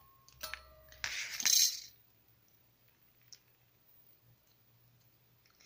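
Thin metal craft cutting dies being snapped apart with pliers. There is a short ringing metallic clink about half a second in, then a louder clatter of metal pieces around a second and a half, and a light tick later.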